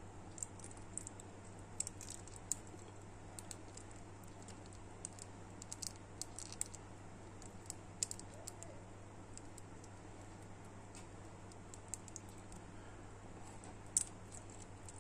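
Small plastic parts of a D-Arts Mega Man Zero action figure clicking and tapping as the arm and hand pieces are handled and pushed together: scattered light clicks, the loudest about a second before the end. A steady low hum runs underneath.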